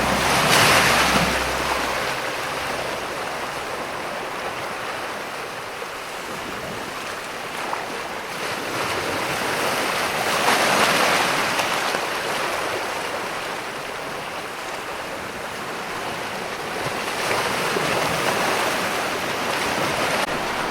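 Ocean waves breaking and washing over rocks, a continuous rush of surf that swells three times, near the start, about halfway, and near the end. Low music tones fade out in the first couple of seconds.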